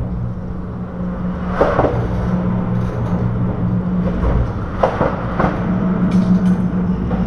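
Steady low rumble with several sharp knocks and clatters, about a second and a half in and twice more near five seconds, as fishing gear bumps against a plastic kayak.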